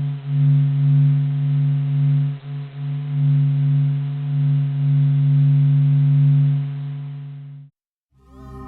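A steady, deep droning hum with a row of overtones above it, swelling and dipping in loudness, presented as a NASA space sound recording. It fades out near the end, and after a moment's silence a new drone with wavering higher tones begins.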